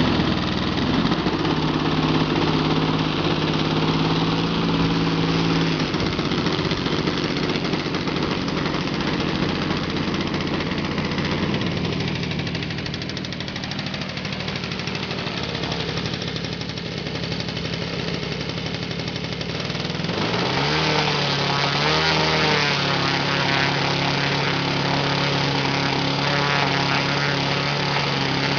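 MVVS 58 single-cylinder two-stroke petrol engine of a large RC model plane running just after starting. It runs at a steady speed, eases down to a lower, quieter idle about twelve seconds in, then is throttled up about twenty seconds in and held there.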